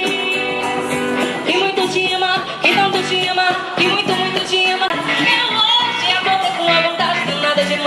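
A song playing: a singing voice over a band with a steady beat.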